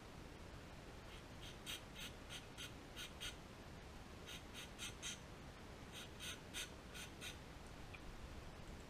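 Faint bird calls in three runs of short, high, evenly spaced calls, about three a second, over quiet room noise.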